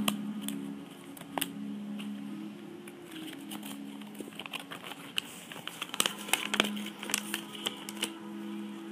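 Plastic packaging crinkling and crackling as it is handled, with sharp crackles clustered in the second half, over quiet background music of held low notes.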